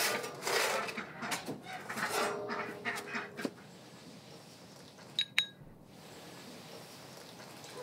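Farmyard fowl calling during the first few seconds, then two sharp, ringing clicks a little after five seconds in.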